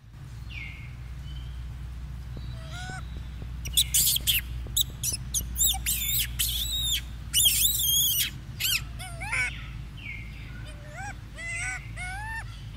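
Rhesus macaques giving short, high squeaks and chirps, many rising in pitch. They come in a quick, loud run through the middle and a few more near the end, over a steady low rumble.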